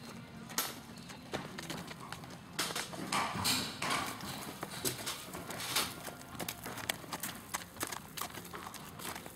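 Hoofbeats of a ridden horse moving over a dirt yard: a run of irregular clip-clop strikes, with a brief louder rush of noise about three to four seconds in.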